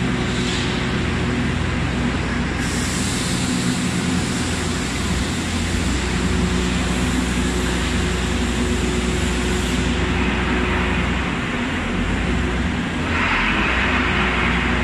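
Excavator engine running steadily with hydraulic hiss as it moves a side-clamp vibratory pile driver attachment. A brighter hiss comes in about two and a half seconds in and drops away around ten seconds, and another hiss starts near the end.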